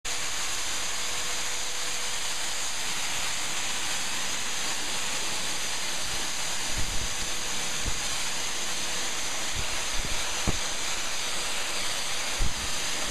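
Steady loud hiss with a thin high whine in it, broken by a few soft low thumps in the second half.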